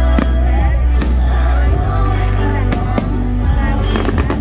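Loud music with a heavy bass and singing, crossed by several sharp bangs of aerial fireworks bursting, with a quick run of bangs near the end.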